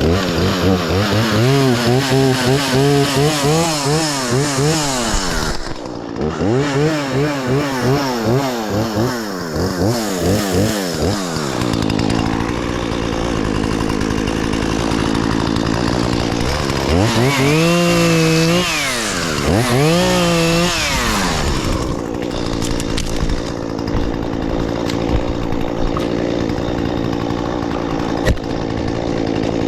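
Two-stroke gas chainsaw running, revved up and down repeatedly with its pitch wavering. It runs steadier for a few seconds at a time in between, with two big rises and falls in pitch about two-thirds of the way through.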